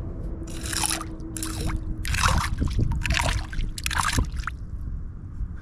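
Creek water splashing and sloshing in about five short bursts, as a hole in the creek bed is stirred and dug through by hand in a search for coins.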